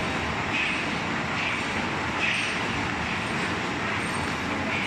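Automatic wire mesh welding machine running: a steady mechanical din with a brighter pulse repeating about once a second as it works through its cycle.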